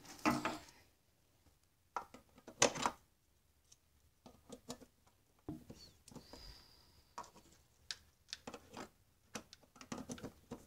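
Scattered faint clicks and rustles of a plug and cord being handled while a string of Christmas lights is plugged in.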